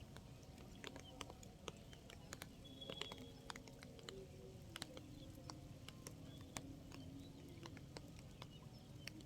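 Faint, irregular clicks and taps, with a soft wavering tone underneath.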